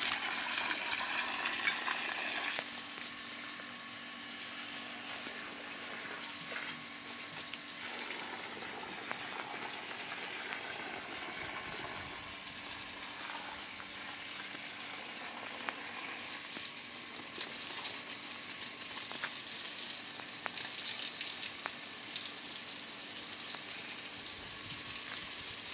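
Water spraying from a garden hose onto the dry soil of a garden bed, a steady hiss that is louder for the first couple of seconds.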